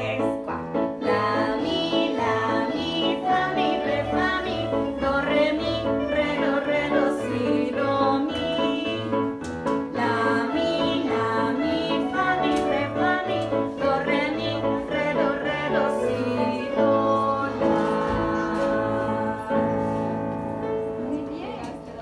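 Several electronic keyboards played together by children: a melody of quick notes over a repeating bass line. Near the end the music settles on a held chord that fades away.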